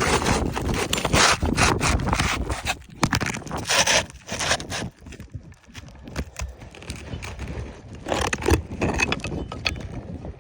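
Roofing shingle scraping and rubbing against the neighbouring shingles as it is worked back into its course and pulled out again in a repairability test, in irregular rough bursts that are loudest in the first few seconds, with another burst about eight seconds in.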